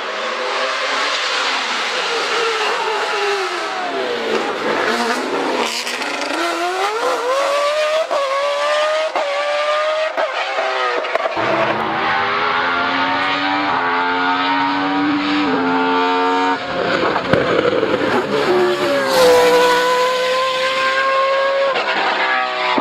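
Judd V8 race engine of the BMW 134 Judd hillclimb car running hard. Its revs drop sharply a few seconds in, then climb in steps through the gear changes and rise and fall again. The sound changes abruptly twice, about halfway and a few seconds later, as it cuts between passes.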